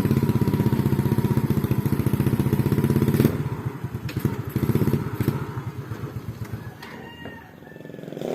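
Small motorcycle engine idling with a rapid, even pulse; after about three seconds it fades away gradually.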